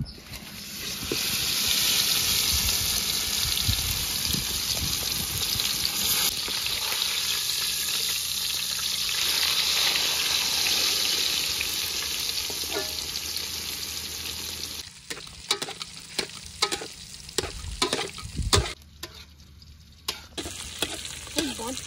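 A masala-coated whole fish sizzles loudly in hot butter in a large aluminium pot, starting about a second in as it goes into the fat. About two-thirds of the way through, the sizzle drops and a metal spatula scrapes and knocks against the pot several times.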